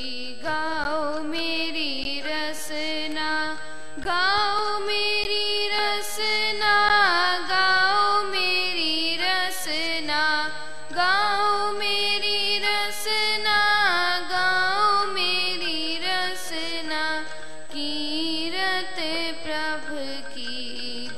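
Sikh kirtan: a girl singing a winding, ornamented melody over held harmonium notes, with tabla strokes.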